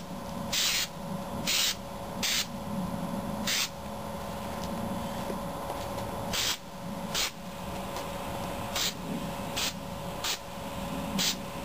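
Aerosol spray can of undercoating hissing in about ten short bursts, each half a second or less, with a pause of a few seconds midway.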